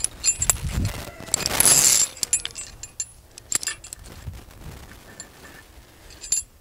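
Steel wire rope, a turnbuckle and U-bolt wire rope clips being handled, clinking and jangling in short scattered clicks. There is one louder scrape about a second and a half in.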